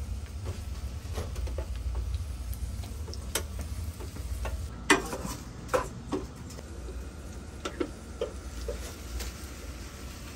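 A cooking utensil clicking and scraping against a saucepan as rice is stirred, in scattered irregular knocks. The loudest come about five seconds in. Underneath is a faint sizzle of mushrooms frying in butter.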